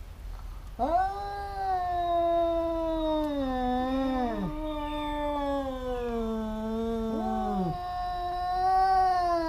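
Two domestic cats yowling at each other in a face-off: long, drawn-out, wavering wails that start about a second in, one voice overlapping and taking over as the other drops away. This is the threat yowling of two cats squaring off to fight.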